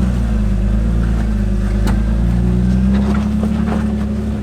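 Off-road rock crawler's engine running steadily at low revs under load while it climbs a rock ledge, rising slightly in pitch partway through. A single sharp knock comes about two seconds in.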